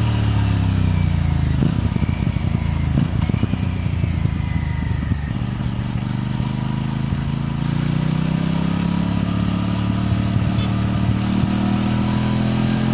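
Aprilia RS 457's parallel-twin engine and exhaust on the move. The revs drop off as the throttle closes, with a run of exhaust pops and crackles for a few seconds. The engine note then climbs steadily as the bike accelerates again in the second half.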